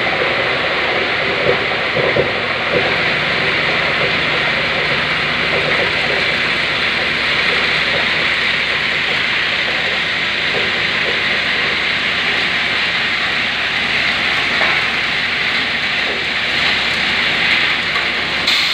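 Polyester popcorn agglomerator running: a steady, loud hissing rush of machine noise as granules pour from its discharge chute, with a faint low hum underneath.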